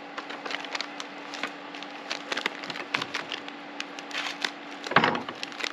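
A packet of Deb instant mashed potato crinkling and crackling as it is handled and torn open by hand, many small crackles and clicks with a louder knock about five seconds in. A steady low hum runs underneath.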